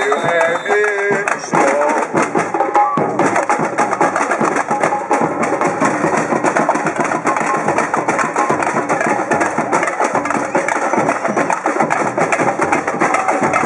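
Brazilian batucada percussion ensemble playing a fast, steady samba rhythm on surdo bass drums and other drums.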